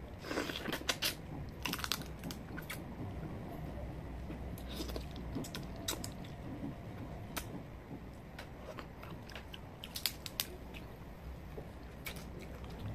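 Cooked crab being bitten and chewed, the shell cracking and crunching in scattered sharp snaps, a cluster of them in the first two seconds and a few more around ten seconds in.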